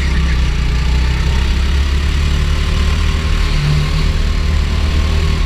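Go-kart engine running steadily as the kart is driven round the track, heard from on board.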